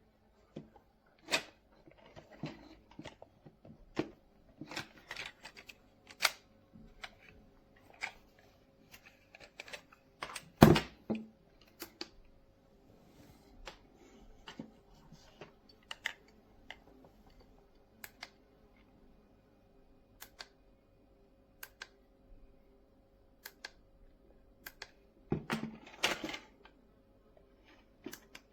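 Scattered light clicks and knocks of small hard objects being handled, with one louder knock about ten seconds in and a short cluster of knocks and rustling near the end, over a faint steady hum.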